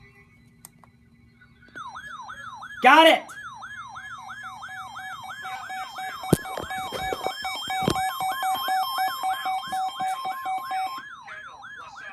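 Weather alert radios sounding their alarm for an incoming severe thunderstorm warning: a warbling, siren-like tone sweeping up and down about three times a second, joined about six seconds in by steady alert tones, with a few clicks. The alarms stop about a second before the end.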